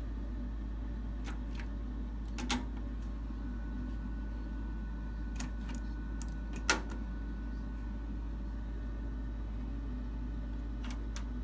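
Sharp mechanical clicks from a cassette deck's controls or transport over a steady low hum. The two loudest clicks come about two and a half and nearly seven seconds in, with a few fainter ones between.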